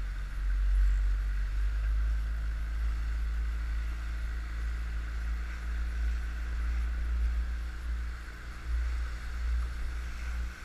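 Outboard motor of an inflatable coach boat running steadily under way, with low wind rumble on the microphone.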